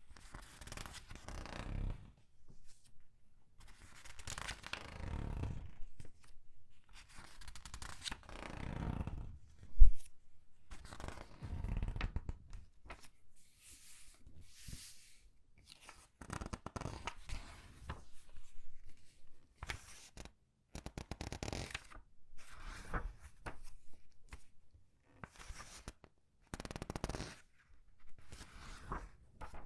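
Comic book pages being turned one at a time and squeezed, each turn a soft rustling swish of paper, about a dozen in all. One short, sharp tap about a third of the way through is the loudest sound.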